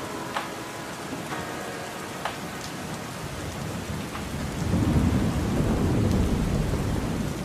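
Steady rain falling, with a few close drops tapping sharply early on. About two-thirds of the way in, a low rumble of thunder comes in and becomes the loudest sound, carrying on to the end.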